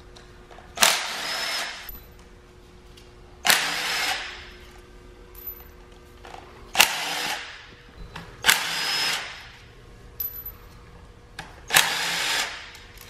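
Cordless impact tool zipping out the valve cover bolts on a Porsche Cayman's 3.4 L M97 flat-six: five bursts of about a second each, a few seconds apart, each starting sharply and trailing off.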